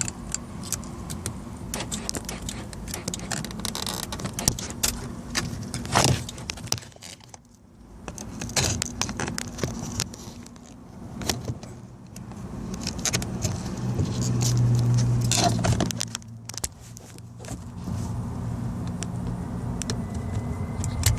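Hands and a screwdriver prying a plastic trim piece off a car door, with scattered clicks, scrapes and rattles. A low hum runs for about two seconds about two-thirds of the way through.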